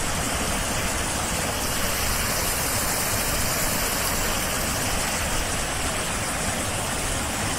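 Spring meltwater rushing steadily through a breach in an earthen dam, pouring over mud and ice. The dam has given way and a lot of water is draining out.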